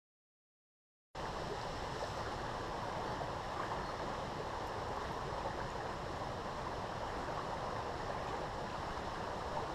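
Silence, then about a second in a steady rush of flowing stream water starts abruptly.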